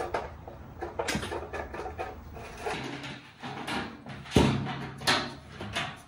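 Sheet-metal ductwork being worked by hand: irregular metallic clanks, knocks and rattles, with the loudest thud about four and a half seconds in and another shortly after.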